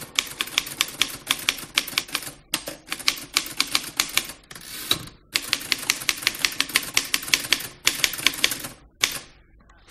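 Typewriter typing in quick runs of keystrokes, broken by a few short pauses.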